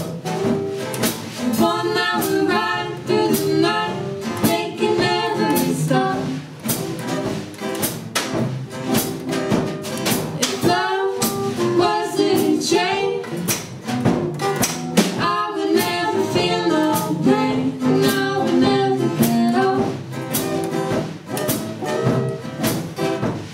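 A small acoustic band playing a song live: acoustic guitars and an acoustic bass guitar over a drum kit keeping a steady beat, with a singing voice coming in and out in phrases.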